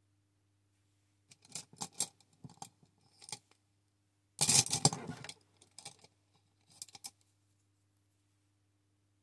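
Handling noise made of short clicks and clinks of small hard objects. A louder scraping clatter comes about four and a half seconds in, as the camera is moved, and a few more clicks follow.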